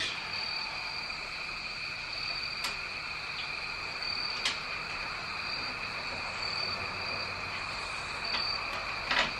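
Steady high-pitched insect trilling with two pitches, the higher one coming and going, and a few faint sharp clicks.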